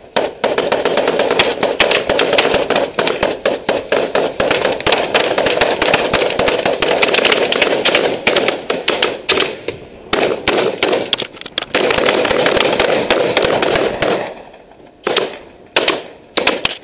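Rifle fire from several security guards: rapid, overlapping shots for about fourteen seconds, thinning near the end to single shots about half a second to a second apart.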